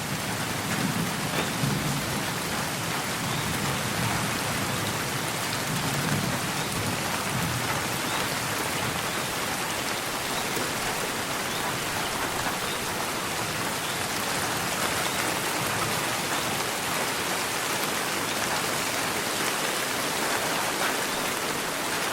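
Steady rain falling in a continuous hiss, with a low roll of thunder in the first several seconds that fades away.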